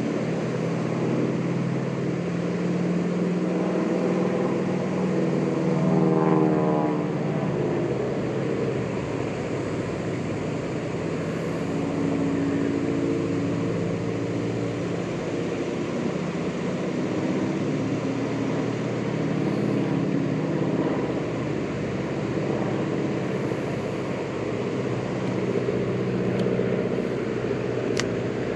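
Steady engine drone with a wandering pitch that rises briefly about six seconds in, over a constant rushing noise; a sharp click near the end.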